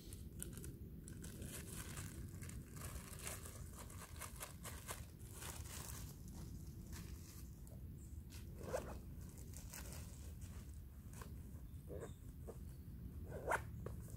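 Hands packing small gear into a black soft pouch: a run of rustles, small clicks and scrapes, with two louder knocks, one about nine seconds in and one near the end, over a steady low rumble.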